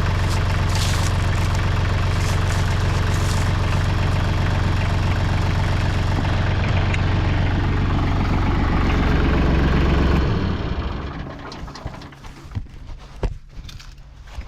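Bad Boy 4035 compact tractor engine running steadily, then shut off about ten seconds in. A few sharp knocks and clicks follow.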